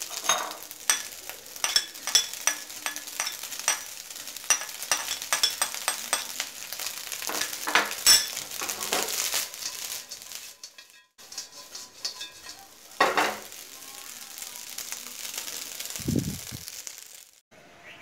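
Fried rice sizzling in a nonstick wok as it is tossed and stirred, with dense sharp crackles and pops through the first half. There is a short low thump near the end.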